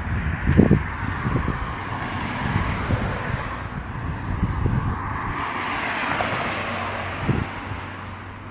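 Outdoor street noise: a car passes, swelling and fading about two-thirds of the way in, over a steady low hum, with wind thumping on the microphone a few times.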